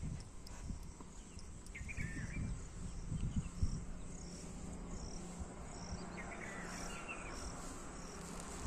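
Outdoor ambience with an insect chirping at a steady pace, about one and a half high chirps a second in the second half, a few short bird-like chirps and a low rumble.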